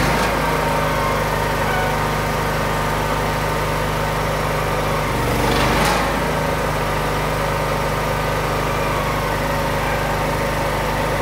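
Electric rotary facer of a Ritmo Delta 355 butt-fusion machine running steadily as it shaves the ends of a polyethylene pipe. This is the facing stage that trues the rough chainsaw-cut ends for fusion. About five to six seconds in, the hum briefly changes and there is a short rushing surge.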